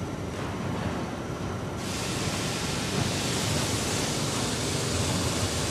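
Machinery noise from a melamine short-cycle lamination line, a steady rumble; about two seconds in, a loud steady hiss suddenly starts and continues.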